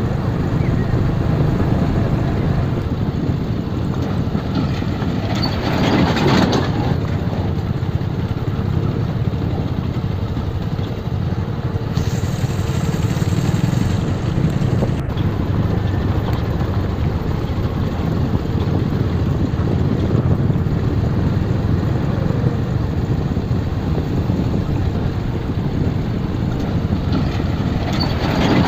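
Motorcycle running at low speed over a rough dirt road, with wind noise on the microphone and brief louder swells about six seconds in and near the end.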